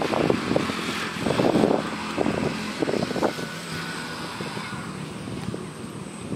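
Motor vehicle running on the road beside the pond, a faint steady hum that fades away after about four seconds. Irregular rustling over the first half.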